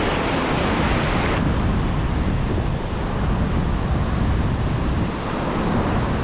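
Ocean surf washing through shallow water, with wind buffeting the microphone. The hissing wash is strongest for the first second and a half, then settles to a steadier rush.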